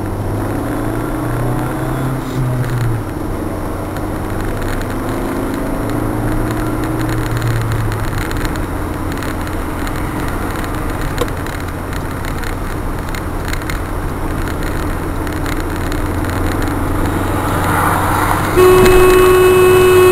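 Car engine and road noise heard from inside a moving car, the engine note shifting in pitch during the first several seconds as it accelerates. Near the end a loud, long, steady car horn blast begins.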